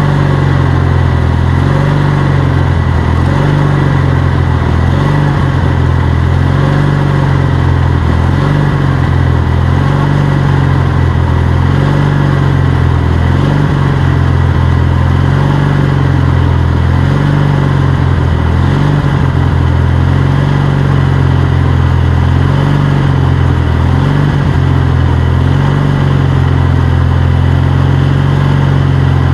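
Garden tractor engine running steadily at constant speed, with a slow, even waver, while the tractor creeps along at its slowest on its hydrostatic drive.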